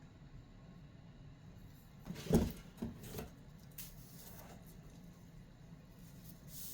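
Packaging and parts being handled during an unboxing: a thump a little over two seconds in, then a few lighter knocks.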